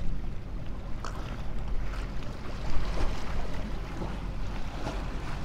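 Wind buffeting the microphone with a steady low rumble, and sea water washing against jetty rocks, with a few faint clicks scattered through.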